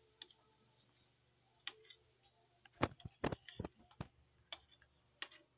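Spoon and fork clicking against a plate while eating. A quick run of louder knocks comes about three seconds in.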